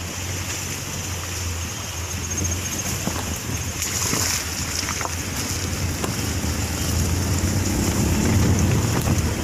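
Wind blowing across the microphone over the steady rush of a wide, shallow, stony river; the wind grows stronger near the end.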